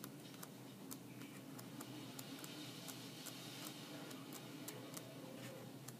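Paper pages of a 6x6 scrapbook paper pad being turned one after another, giving faint, uneven clicks and snaps several times a second over a low steady hum.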